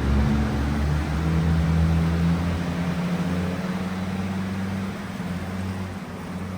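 A motor vehicle's engine running at low revs, a steady low hum that slowly grows a little quieter.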